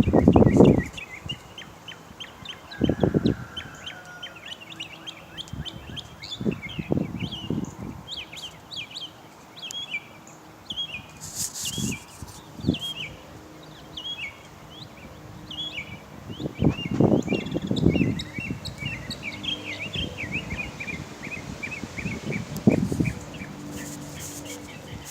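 A bird, which the recorder takes for a northern mockingbird, sings a long run of short, varied high chirps in quick repeated phrases, as if mimicking other birds. A few louder low thumps or rustles break in at intervals.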